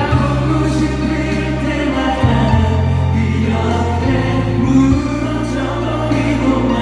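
Music: a song with layered, choir-like singing over steady held bass notes that change every second or two.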